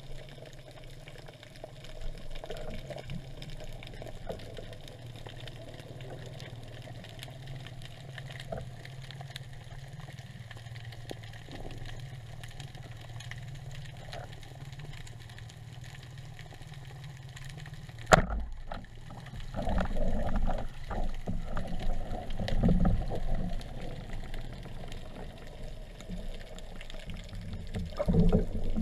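Underwater sound through a diving camera: a steady low water rumble, then one sharp snap about two-thirds of the way through as the speargun fires. Louder, irregular water movement and knocking follow.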